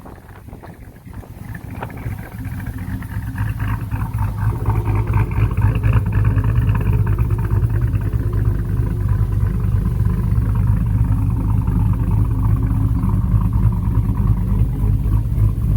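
A motor vehicle's engine running, growing louder over the first few seconds and then holding a steady low drone.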